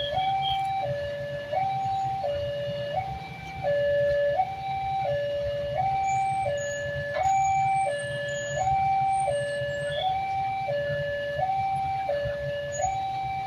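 Railway level-crossing warning siren sounding a two-tone hi-lo alarm, switching between a lower and a higher note about every three-quarters of a second, signalling that a train is approaching. A low rumble runs underneath.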